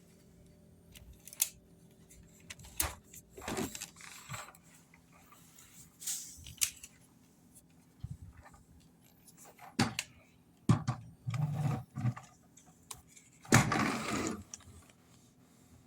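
Intermittent handling noises: sharp clicks and knocks with short rattling scrapes, a few seconds apart, with the longest rattles near the end. No motor is running.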